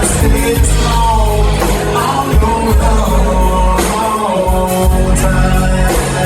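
A band playing with a singer: a sung melody over heavy bass and drums.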